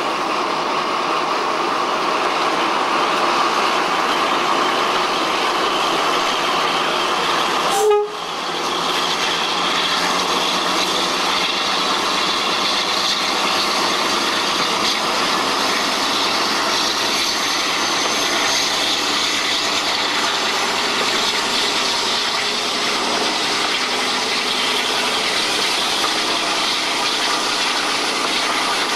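Preserved diesel-hydraulic locomotive running along the line, heard from its cab window: steady engine noise mixed with rushing wind and wheel-on-rail noise. There is a sharp click and a brief dropout about eight seconds in.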